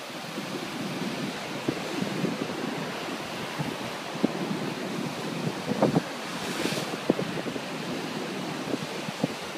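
Storm surf breaking against a sea wall: a steady rushing wash of waves, with gusts of wind buffeting the microphone in short thumps. A brief louder hiss of spray comes a little after two thirds of the way through.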